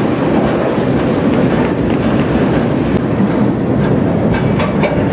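Freight train rolling along the track, heard from aboard one of its cars: a loud, steady rumble with the clatter of wheels clicking over the rails.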